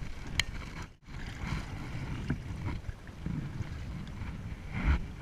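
Low rumbling wind noise on the microphone, with a short click early on, a sudden brief dropout about a second in, and a thump near the end.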